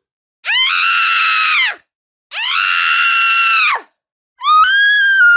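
A woman screaming: three high-pitched screams, each about a second and a half long with a short silence between, each rising sharply at the start and dropping away at the end. The third begins near the end and is still held.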